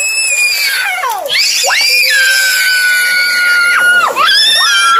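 Whistling fireworks going off one after another: about three shrill whistles, each rising sharply, holding a steady pitch, then falling away. The longest runs about two seconds, in the middle.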